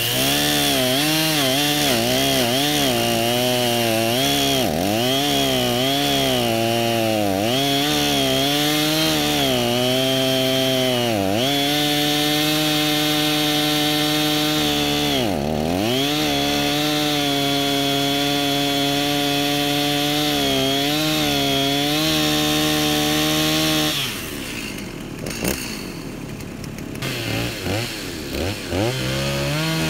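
Stihl Farm Boss two-stroke chainsaw cutting through a dead, rotted apple tree trunk at high revs, its engine pitch repeatedly dipping and recovering as the chain bogs in the wood. About three-quarters of the way through it drops to a quieter, lower running for a few seconds, then revs up again near the end.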